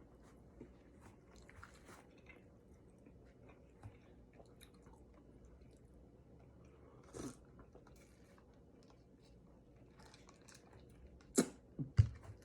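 A person quietly chewing birria close to the microphone, with faint scattered mouth ticks. A brief louder mouth sound comes about seven seconds in, and three sharp clicks near the end are the loudest sounds.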